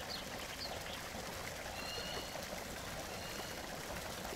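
Steady trickling and rushing of a stream. A few faint, short, high chirps rise above it briefly near the start and again about two seconds in.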